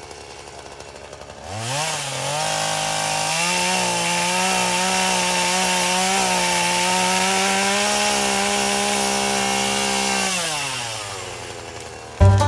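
Craftsman S180 42cc two-stroke chainsaw idling, then revved to full throttle about a second and a half in and held there for about eight seconds while it cuts through a small tree trunk, then winding back down to idle. Music cuts in right at the end.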